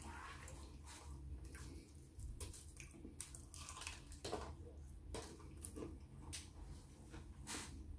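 A person biting and chewing fried chicken: irregular wet smacks and crunchy clicks of eating.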